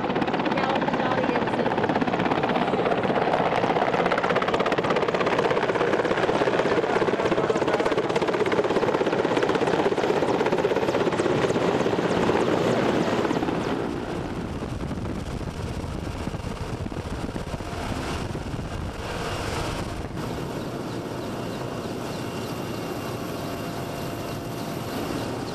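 Helicopter heard from inside its cabin: loud, steady rotor and engine noise, which drops somewhat in level about halfway through.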